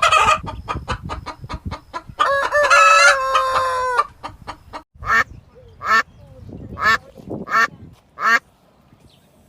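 Chickens: a quick run of clucks, then a rooster crows for about two seconds, followed by five separate short calls less than a second apart.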